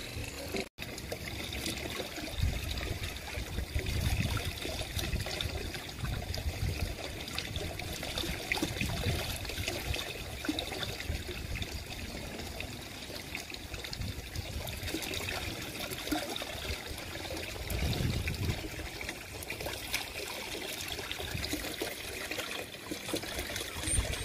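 Water pouring steadily from a spa pool's sheer waterfall spout and splashing into the pool. There is a brief dropout about a second in.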